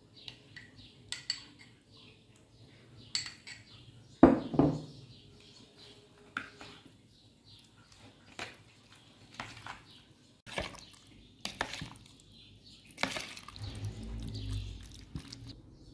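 A metal spoon scooping from a small ceramic bowl and tapping against the rim of a plastic mixing bowl: a string of separate clinks and taps, the loudest about four seconds in. Near the end the spoon stirs chunks of chicken coated in the sauce, a short spell of scraping and mixing.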